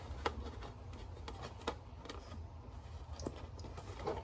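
Light hand-handling of a Big Mouth Billy Bass novelty fish's plastic body and skin, with a handful of faint, short clicks over a steady low hum.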